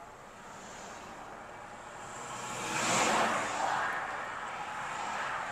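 A vehicle passing on a highway: its road and engine noise swells to a peak about three seconds in and then fades.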